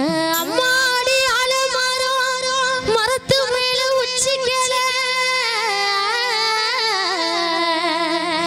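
A woman singing a Tamil folk song through a microphone, holding long notes with wavering ornaments. There is a short break about three seconds in, and the melody steps down in pitch over the last few seconds.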